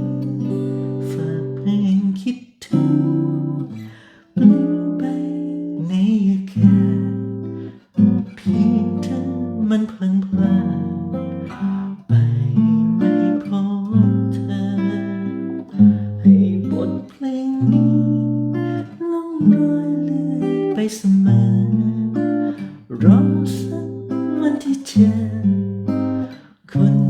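Acoustic guitar playing an instrumental passage of reharmonized chords, each chord struck and left to ring about a second, with picked melody notes over them.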